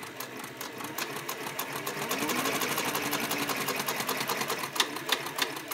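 SEWPRO 441-PRO heavy-duty cylinder-bed leather sewing machine, driven by a servo motor, stitching through leather with a rhythmic clatter of separate stitches. The stitching speeds up and gets louder in the middle with a faint motor hum, then slows to a few single stitches and stops, the servo parking the needle down.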